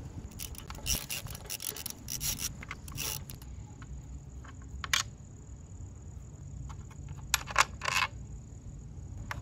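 Socket wrench clicking in quick runs as a bolt is backed out of a motorcycle's stock air cleaner backing plate. Near the end come a few sharp clicks and scrapes as the backing plate is worked loose.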